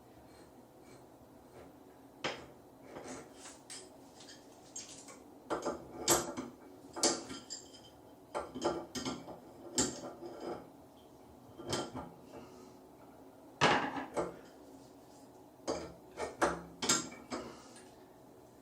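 Irregular metal clinks and knocks of chrome shower fittings being handled and screwed together. They are light at first and louder and more frequent from about five seconds in.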